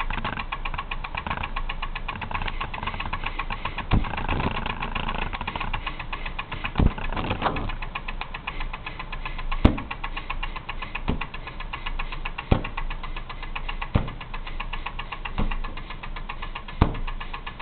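High-voltage plasmatron spark ignition of a homemade VTDC engine, crackling as a rapid, steady buzz, with louder single pops every second or two while very lean fuel is fed to the chamber.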